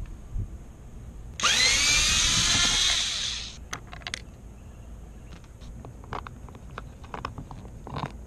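Cordless screwdriver running for about two seconds, its whine rising in pitch as the motor spins up and then holding steady, as it backs out the Phillips screw behind a car door's interior handle. After it come scattered light clicks and taps.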